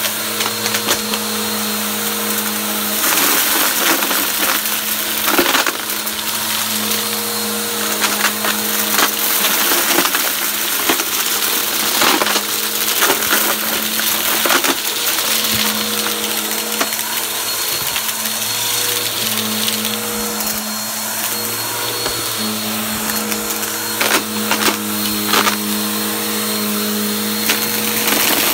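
Bissell PowerForce Helix upright vacuum cleaner running steadily, with many sharp clicks and crackles as debris is sucked up off the carpet through its brush roll.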